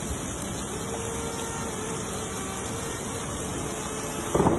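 Heavy rain pouring onto a flooded road: a steady hiss of water. There is a brief, louder sound near the end.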